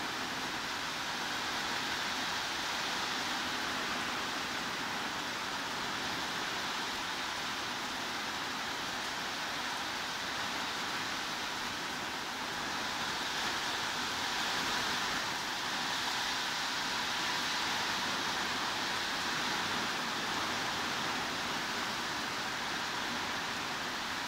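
Heavy rain falling as a steady, even hiss with no separate drops or thunder, swelling slightly a little past halfway.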